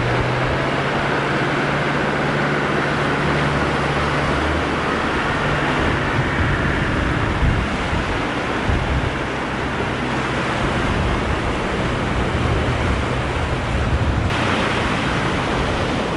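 Fast floodwater rushing over a ford as a Land Rover Defender wades through it, its engine running low under the water noise. The rush turns abruptly brighter near the end.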